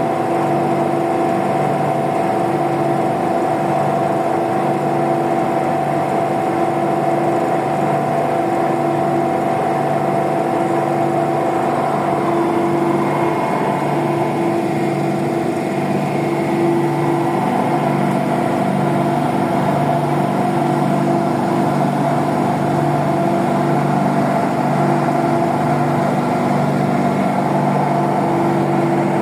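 Tuna fishing vessel's engine and deck machinery running steadily, a loud hum with several steady tones, its pitch shifting slightly about halfway through as the loaded brailer net is worked.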